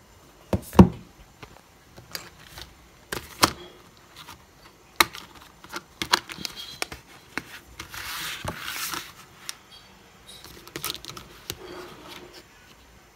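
Small objects being handled and set down: a series of sharp taps and clicks, the loudest a thump just under a second in, with a rustle lasting about a second around eight seconds in.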